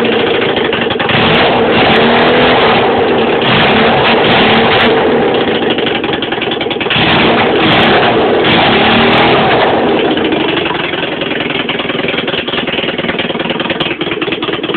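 Honda CB350 motorcycle engine in a home-built off-road buggy, running and revving in repeated surges, its pitch rising and falling. It runs somewhat quieter over the last few seconds.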